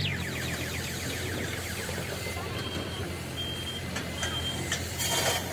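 A warbling high electronic tone fades out in the first second over a steady low hum. From about halfway through, four short high electronic beeps sound under a second apart.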